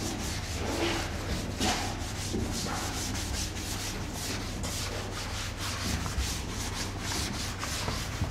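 Chalkboard duster being rubbed back and forth over a blackboard to wipe off chalk writing: a quick, even run of short scrubbing strokes, several a second.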